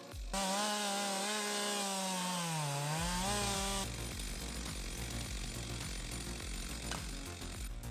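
Two-stroke chainsaw running at high revs, its pitch sagging under load about two and a half seconds in and then picking back up, before it cuts off abruptly. A low, steady beat follows.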